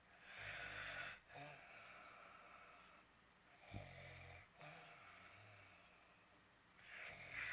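A sleeping man snoring faintly, three snores about three seconds apart, the first and last louder.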